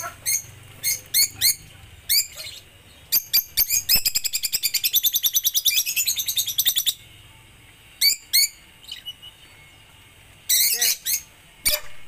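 Caged lovebirds chirping: sharp, high chirps, with a fast unbroken run of them a few seconds in and another burst near the end.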